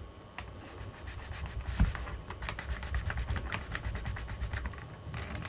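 Serrated knife sawing through a Basque cheesecake's firm, burnt top crust: a run of short rasping, crackling scratches, with one sharper knock a little under two seconds in.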